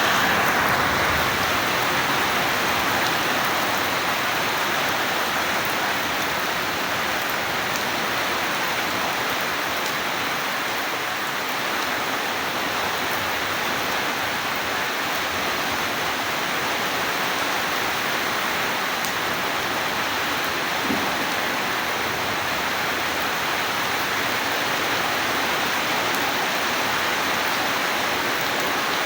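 Steady rain falling, a continuous even hiss of water, a little heavier in the first couple of seconds.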